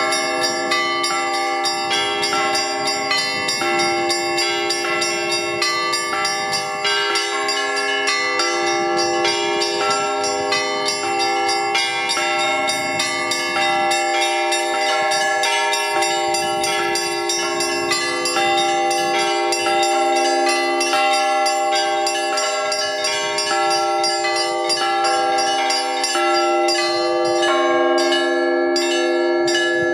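Church bells ringing continuously: rapid strokes on small high bells over slower, alternating strokes on larger, deeper bells.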